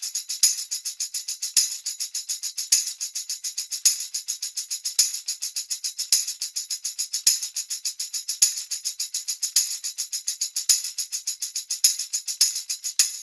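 A tambourine played in a steady, fast rhythm of jingling strokes, about seven a second, with a louder accented hit roughly once a second. It starts and stops abruptly.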